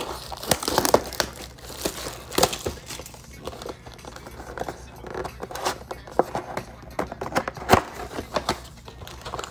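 Handling noise from a trading-card box being opened: its plastic wrapping and wrapped card packs crinkle, and the cardboard gives off irregular taps and scrapes as the lid comes up and the stack of packs is pulled out.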